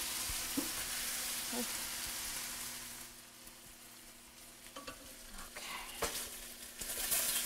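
Pasta and broccoli sizzling in hot garlic and olive oil in a stainless steel skillet. The sizzle dies down about three seconds in, then a wooden spoon stirs, with a few knocks against the pan.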